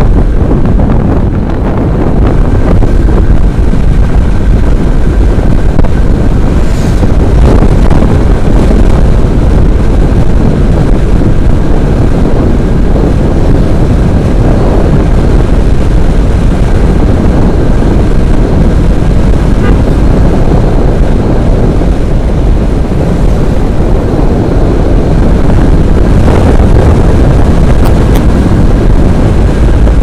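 Loud, steady wind buffeting on the microphone of a helmet-mounted camera on a moving motorcycle, with the motorcycle's running and road noise beneath it.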